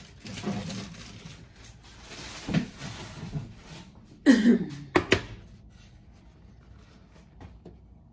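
Kitchen paper rustling and crinkling as a sandwich is wrapped, with a few small knocks. A short squeal sliding down in pitch about four seconds in is the loudest sound, followed by a sharp click; the rustling stops soon after.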